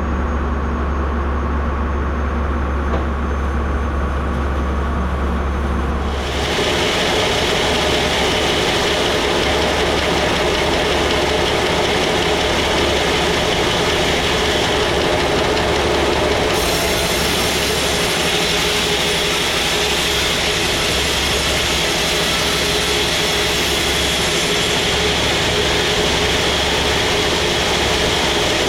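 Sawmill running: a steady low machine hum, joined about six seconds in by a much brighter, hissing saw noise that holds steady as the blade cuts through the teak log.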